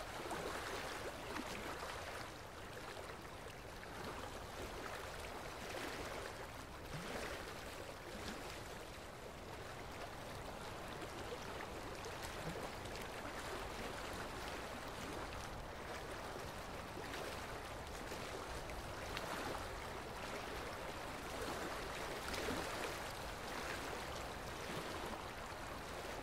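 Steady watery hiss and gurgle of dental suction and water spray during tartar scaling.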